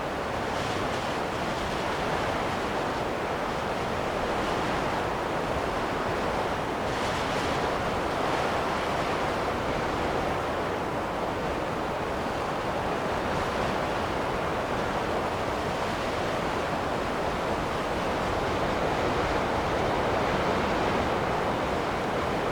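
Wind blowing in a steady rushing sound with small swells, getting a little louder near the end.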